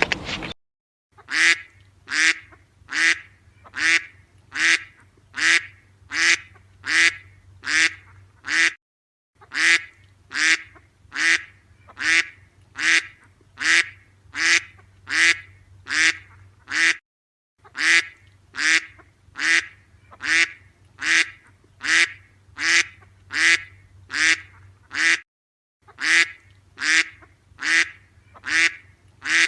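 Waterfowl calling in a steady series of near-identical calls, about two a second, in runs of about eight seconds broken by short silences.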